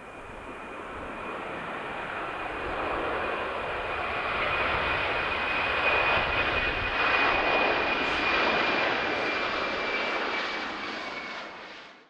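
Airbus A330 jet airliner taking off at full thrust, its engines' roar building to a peak midway and then fading as it climbs away. A steady high whine runs over the roar.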